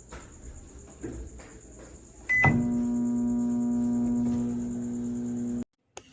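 A few faint knocks, then a short high beep. A Sharp R-32E(S) microwave oven starts running with a steady low electrical hum, which cuts off suddenly about three seconds later.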